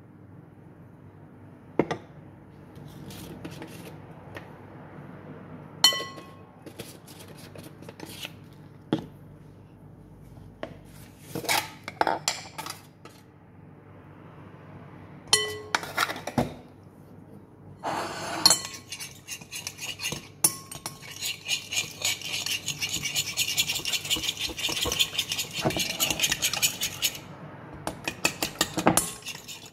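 Metal spoon clinking and tapping against a jar and a glass mixing bowl, a few of the taps ringing. About two-thirds of the way through comes a long run of rapid fine clicking that lasts several seconds.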